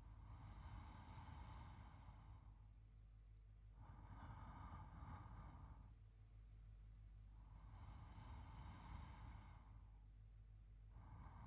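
A man's slow, faint sleep breathing, soft even breaths about every four seconds, over a low steady hum.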